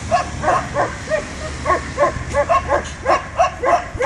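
German Shepherd barking rapidly and insistently, about three to four barks a second, while held back on the leash and facing a helper with a bite sleeve in protection training.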